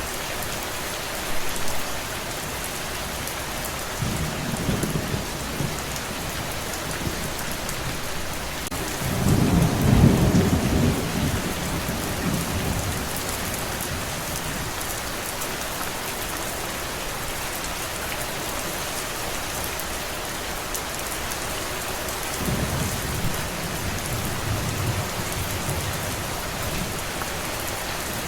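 Steady rain with rolling thunder. A low rumble comes about four seconds in, the loudest and longest rumble swells around ten seconds in, and another rumbles about twenty-two seconds in.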